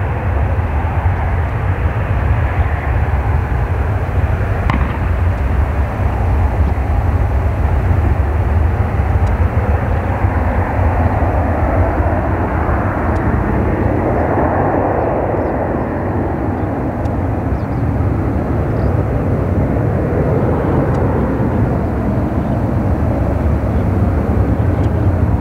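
Twin-engine jet airliner climbing out just after lift-off, its engines at takeoff power giving a steady, loud rumble.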